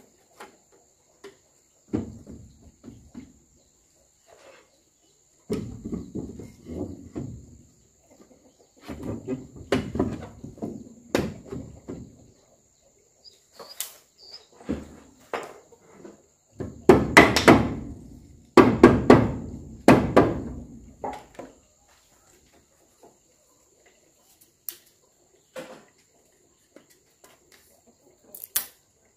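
Wooden boards and strips knocking and clattering as they are handled, in several bursts of rapid knocks, the loudest around the middle. A few single taps follow near the end.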